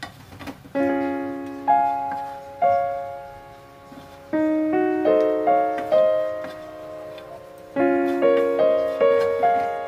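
Background piano music: unhurried notes and chords, each struck and left to fade, starting about a second in.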